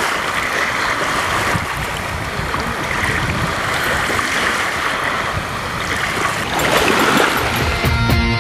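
Small waves washing and lapping on a shore, a steady rushing of water. Guitar-led rock music comes in near the end.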